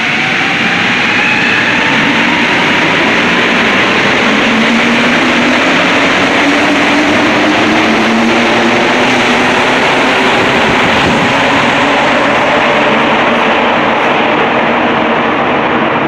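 Montreal Metro Azur (MPM-10) train pulling out of the station. Its traction motors whine in several rising tones as it gathers speed, followed by a loud, steady noise as the rubber-tyred cars run past and away into the tunnel.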